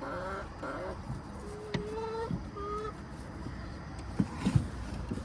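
Backyard hens giving short, soft calls. A sharp click comes a little under two seconds in, and a few louder thumps near the end, over a steady low rumble.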